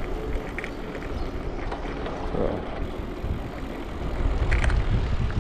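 Careem rental bicycle rolling over paving stones, a steady low rumble of tyres and wind on the microphone that grows louder about four seconds in.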